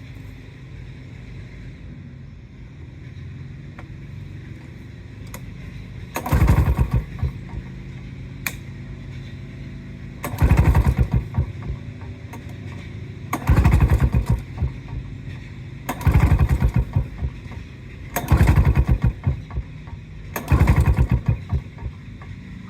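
Lawn-Boy 10324 mower's Duraforce two-stroke engine being pull-started six times, each pull a short burst of rapid cranking strokes that never catches into running. The engine has spark from a new coil; the owner is fairly sure a fuel shutoff he fitted is starving it of fuel. A steady low hum runs underneath.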